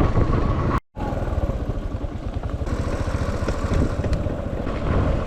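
Dirt bike engine running as the bike is ridden slowly over a rough, muddy track. The sound drops out for a moment about a second in.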